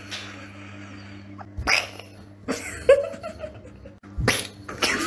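A cat making a run of short, sharp sneeze-like bursts, five in all, the first about a second and a half in.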